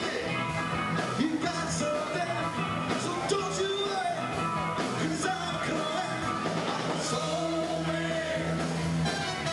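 Upbeat rock-and-roll band music with a singer, running steadily.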